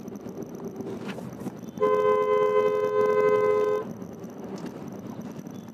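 A car horn sounds once, held steady for about two seconds, rising well above the steady engine and road hum inside the car.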